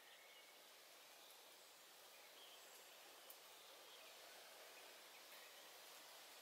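Near silence: faint woodland ambience with a few faint, brief bird chirps and a single small click.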